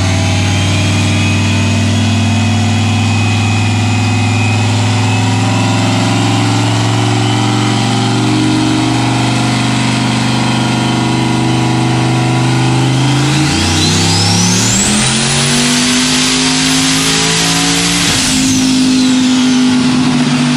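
Single-turbo junkyard V8 in a Corvette running on a chassis dyno. It holds a steady low speed, then about two-thirds in it is floored and the revs climb quickly with a turbo whistle rising high. It holds near the top for a few seconds, then the throttle closes near the end with a rush of air from the blow-off valve as the whistle falls away.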